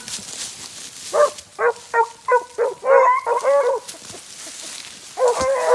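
Beagle hounds baying in short, repeated, pitched barks as they trail a rabbit: a run of calls from about a second in lasting nearly three seconds, then a fresh run starting near the end.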